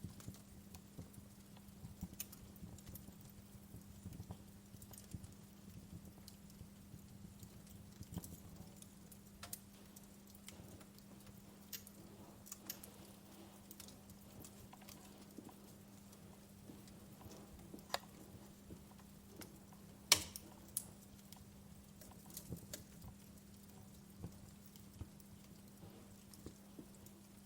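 Wood fire in a fireplace crackling, with sparse snaps and pops of burning logs and one louder pop about 20 seconds in. A faint steady hum runs underneath.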